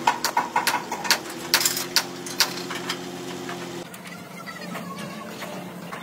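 A rapid run of ringing hammer strikes on a steel truck chassis through the first two and a half seconds, over an engine running steadily. About four seconds in the strikes are gone and a fainter steady engine hum is left.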